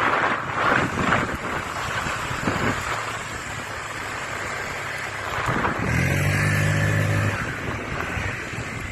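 Wind buffeting the microphone over road and engine noise from a moving motorcycle, gusty in the first few seconds. About six seconds in, a low steady drone sounds for just over a second.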